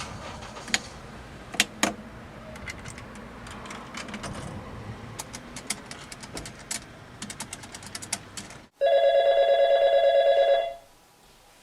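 A scatter of light clicks and taps, then a telephone ringing: one ring of about two seconds near the end, with the next ring starting as it closes.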